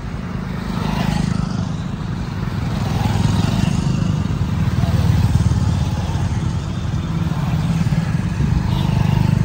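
Motorcycle engine running under way, with a heavy, steady wind rumble on the microphone from riding.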